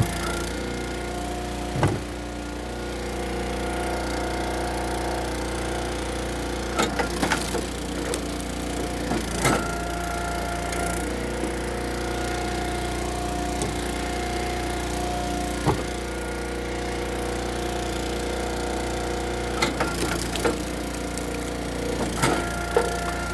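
Eastonmade Axis hydraulic firewood splitter running steadily, its engine tone shifting a few times as it works. Sharp cracks and knocks of ash wood being split and dropping come every few seconds, about six times.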